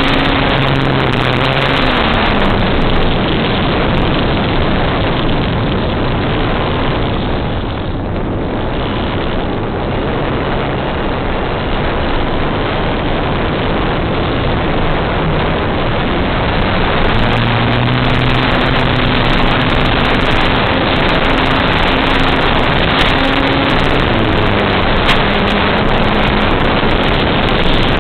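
Loud, steady hiss of an FPV model airplane's analog audio feed, with a low motor-and-propeller hum under it. The hum drops in pitch about two seconds in and rises again around seventeen seconds in as the throttle changes, and crackles of static come and go.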